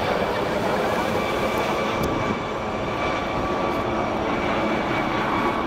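London Air Ambulance MD 902 Explorer helicopter flying away after take-off, its engines and rotor a steady drone with a steady high whine.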